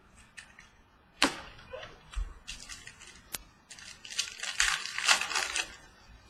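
Trading cards and packs being handled close to the microphone. A sharp snap comes about a second in, then a few seconds of dry rustling and sliding as cards are shuffled through.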